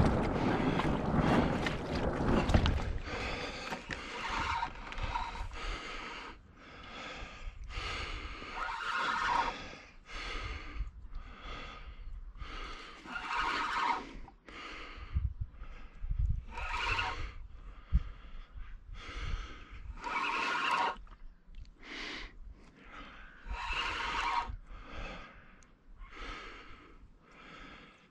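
A person breathing hard close to the microphone, one loud breath every two seconds or so, with a louder rumble of handling or wind in the first couple of seconds.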